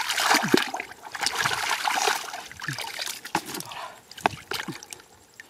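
Muddy water splashing and trickling out through the holes of a perforated plastic basin scooped full of mud, loudest in the first couple of seconds, then fading to scattered wet squelches and sloshes of hands and boots in shallow mud.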